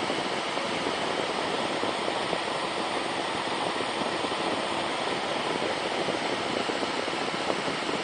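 High-speed 120 mm axial fan running close by, a steady rush of air blowing through a small water-cooling radiator, with a faint steady hum.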